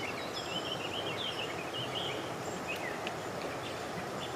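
Songbirds chirping and warbling in quick phrases, busiest in the first couple of seconds, over a steady outdoor background hiss.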